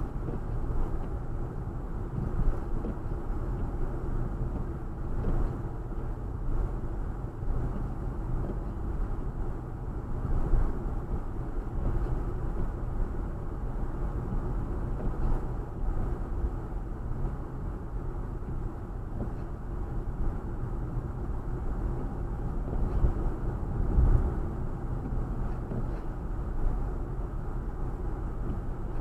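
A car driving along a road, heard from inside the cabin: a steady low rumble of engine and tyre noise, slightly louder for a moment about ten seconds in and again near the end.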